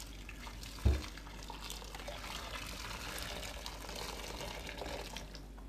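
Boiling water from a kettle pouring in a steady stream into a bowl of water holding thawed squid, scalding them so the skin comes away. A single dull thump about a second in.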